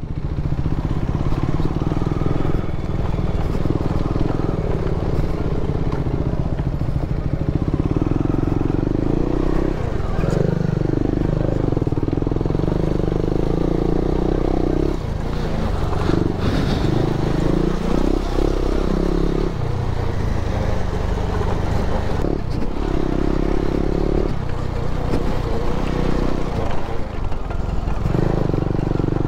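Motorcycle engine running while riding, its pitch dipping and climbing again several times with throttle and gear changes.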